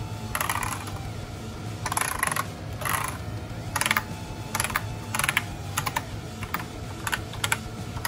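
Typing on a Razer BlackWidow V3 mechanical keyboard: single keystrokes clacking at an uneven pace, a few slower presses at first, then quicker ones about two or three a second from around halfway.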